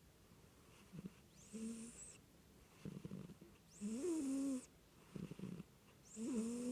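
A cat snoring in a steady breathing rhythm, about three breaths. Each is a brief low rattle followed by a longer snore with a clear pitch and a hiss, roughly every two to two and a half seconds.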